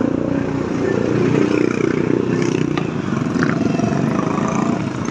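A motor vehicle's engine running steadily close by at low speed, amid street traffic.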